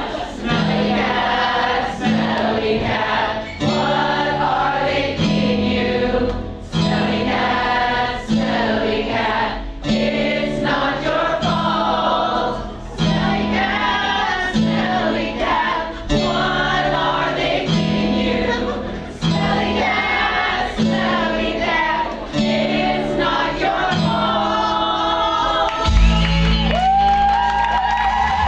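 A song with a group of voices singing together over a steady, repeating bass beat. About two seconds before the end there is a loud low thud, with a rising held note over it.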